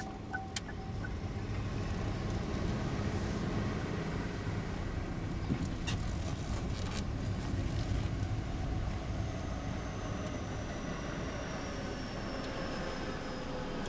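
A train running past with a steady low rumble. The rapid repeating strikes of a level-crossing alarm bell die out in the first second. A faint high whine slowly falls in pitch in the second half.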